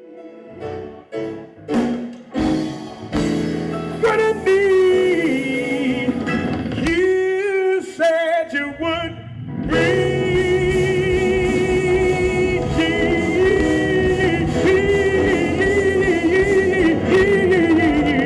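Live R&B/funk band music: a few short, separate chord hits in the first seconds, then sustained chords with a wavering sung melody line carried over them.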